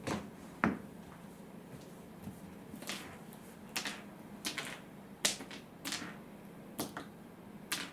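A series of sharp, light clicks and taps, about ten of them at irregular intervals.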